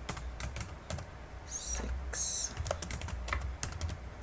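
Typing on a computer keyboard: a quick, irregular run of key clicks, with two short hisses near the middle.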